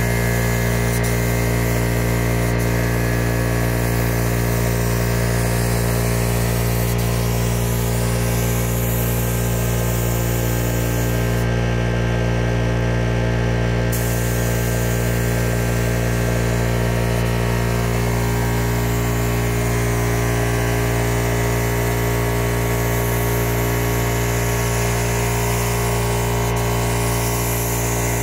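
Gravity-feed paint spray gun hissing as it sprays basecoat, over the steady hum of an air compressor motor running. The hiss stops for a couple of seconds about twelve seconds in, then resumes.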